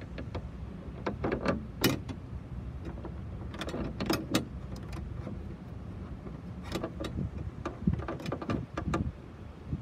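Irregular metal clicks and clinks as a hood hinge and steel hood-strut bracket are shifted by hand on a loosened nut, in several short clusters over a steady low hum.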